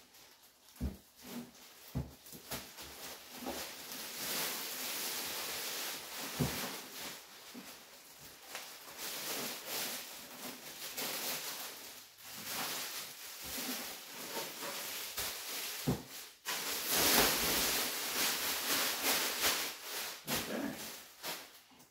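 Plastic wrap crinkling and rustling as it is pulled off a resin 3D printer, with a few knocks as the printer is handled on a wooden table.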